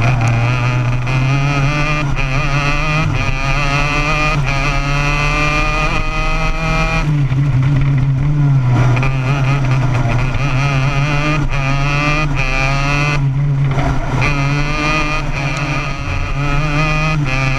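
Racing kart engine heard close up from the kart itself, its pitch climbing under acceleration and falling away each time the driver lifts off, several times over.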